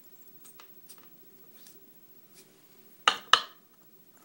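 Small metal clicks of a brass lock cylinder as its plug is slid out of the housing onto a steel follower, then two sharp metallic clacks about a quarter second apart, a little after three seconds in.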